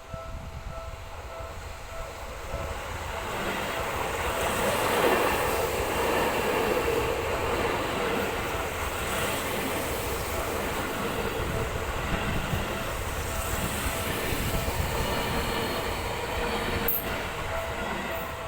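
Electric commuter train on the Seibu Ikebukuro Line passing at speed, its wheels running over the rails. The noise builds over the first few seconds and stays loud until near the end. A level-crossing warning bell rings steadily underneath.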